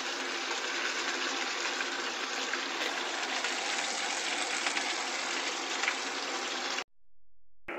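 Chicken pieces sizzling steadily in hot oil in a non-stick frying pan. The sound cuts off abruptly near the end.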